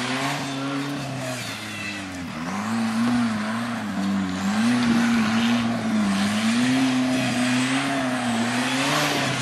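Off-road racing buggy's engine revving, its pitch rising and falling about once a second, with a brief drop in revs about two seconds in.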